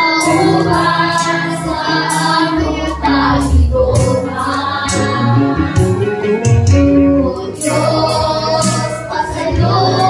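A group of voices, mostly women and girls, singing a worship song together with a low instrumental backing.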